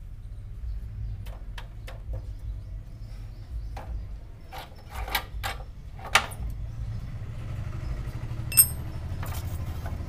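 Scattered metallic clicks and knocks of spanners and motorcycle wheel parts being handled as the front wheel is taken apart, with one bright ringing clink about eight and a half seconds in, over a low steady hum.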